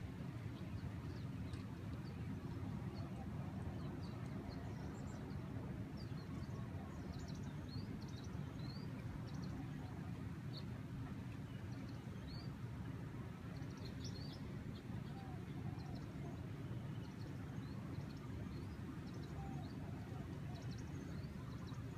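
Birds chirping in many short, high calls scattered throughout, over a steady low rumble of breeze.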